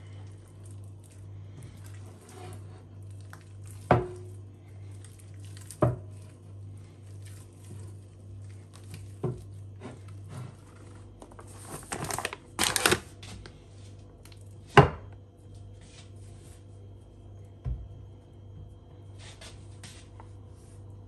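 Hands kneading bread dough in a ceramic bowl, the bowl knocking sharply against the wooden countertop several times. A short burst of paper rustling comes about twelve seconds in, over a steady low hum.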